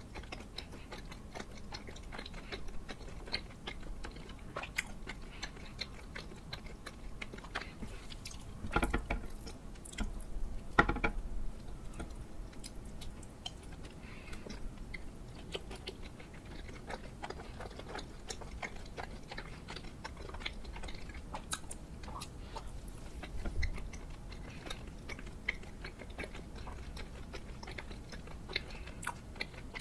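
Close-miked chewing of soft, sticky glutinous rice cake (chapssaltteok) with cream filling: a steady run of small wet mouth clicks and smacks. Two briefly louder sounds come at about nine and eleven seconds in.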